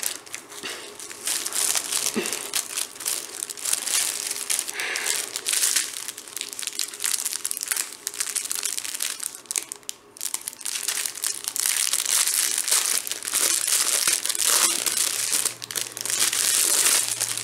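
Small plastic bags of diamond-painting drills crinkling and rustling as they are handled and sorted, a continuous crackly rustle.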